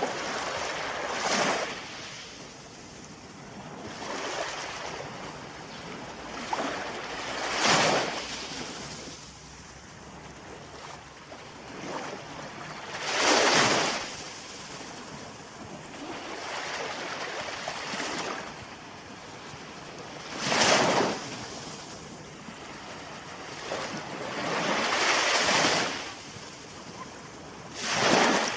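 Ocean waves breaking one after another: a steady wash of surf with about six louder surges, each building and falling away over a second or two, spaced five to seven seconds apart.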